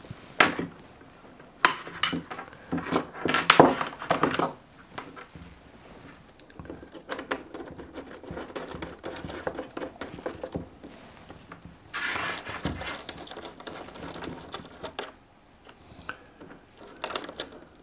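Battery-charger leads and clamps being handled and hooked up to a 12 V LiFePO4 battery: sharp clicks and metallic clinks, thickest in the first few seconds, then softer rustling and small knocks.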